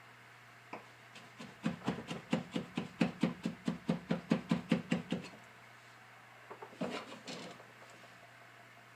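Kitchen knife chopping garlic cloves on a wooden cutting board: a quick, even run of taps, about four or five a second, for nearly four seconds, then a few more taps a little later.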